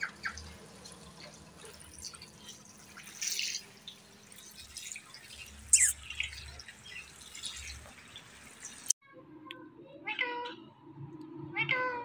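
Rose-ringed parakeet calling: a few short sharp squawks in the first part, then near the end two drawn-out, meow-like calls about a second and a half apart, a talking parrot mimicking a cat.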